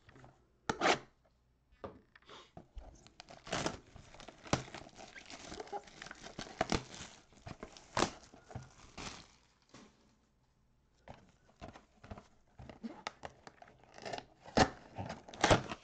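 Plastic shrink-wrap being torn and crinkled off a cardboard trading-card box, an irregular crackle. After a short pause about two-thirds of the way in, more crinkling and a few sharp snaps as the box is opened.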